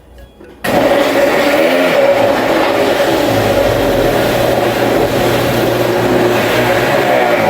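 Magiccos high-speed countertop blender switching on abruptly just under a second in and running hard on frozen passion fruit and Greek yogurt, blending it into ice cream. The motor's pitch wavers as the load shifts.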